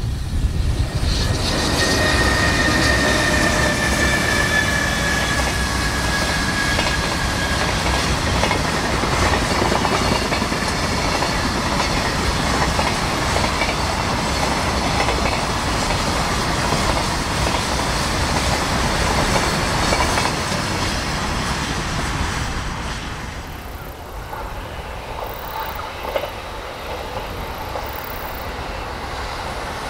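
A long container freight train hauled by an EH500 electric locomotive runs past on the rails with a dense, steady rolling rumble. A high tone slides slightly down in pitch over several seconds near the start. About 23 seconds in, the sound drops to the quieter running of an approaching E531 series electric train.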